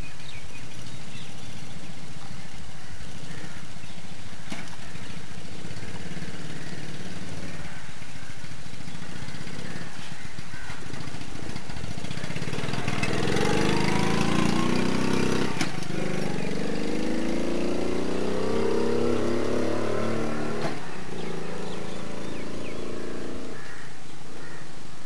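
Small motorcycle engine running at a steady idle, then revving as the bike pulls away. Its pitch climbs twice, with a short break between, as it picks up speed, and the sound fades as the bike rides off.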